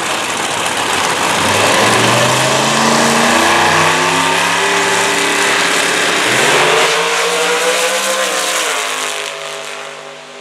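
Two Top Dragster race cars' engines at full throttle, loud, with the pitch climbing in steps as the cars accelerate. The sound fades near the end as the cars pull away down the track.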